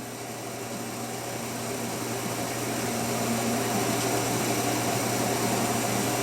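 Electric fan heater running: a steady fan whir with a motor hum, growing louder over the first few seconds and then holding steady.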